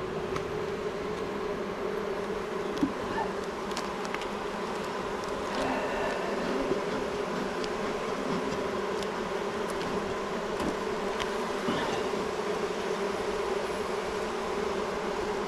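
Honeybees buzzing around an open hive: a steady, dense drone of many bees, with a few short clicks scattered through it.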